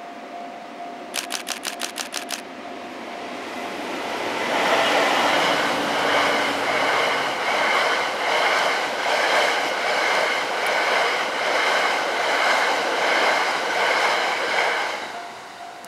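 A locomotive-hauled passenger train, an EF510 electric locomotive with the E26 Cassiopeia sleeper coaches, passing on the rails: its noise builds from about three seconds in, stays loud with a rhythmic wheel clatter and a steady high ringing, and fades away near the end. Before the train arrives there is a quick run of about eight sharp clicks.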